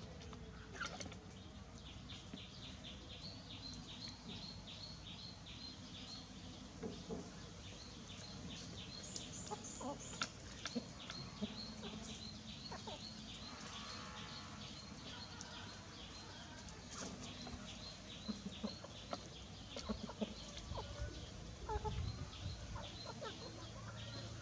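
Chicks peeping continually in quick high notes, with a chicken clucking low now and then among them.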